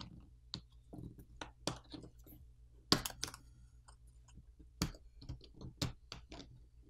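Scattered sharp plastic clicks and taps as a plastic pry pick works along the clipped plastic top cover inside a Huawei P40 Pro, popping its catches loose. The loudest click comes about three seconds in, with more near five and six seconds.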